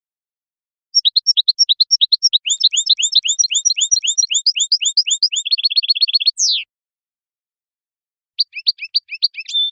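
European goldfinch singing. A fast twittering run of short, downward-slurred notes starts about a second in and closes with a quick even trill and one sweeping note. A shorter phrase of the same twittering follows near the end.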